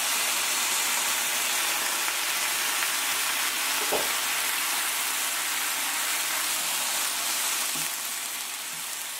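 Mushrooms and vegetables sizzling and steaming in a hot frying pan just after liquid birch sap has been poured into the hot oil, stirred with a wooden spatula. The sizzle is steady, easing slightly near the end, with one light knock about four seconds in.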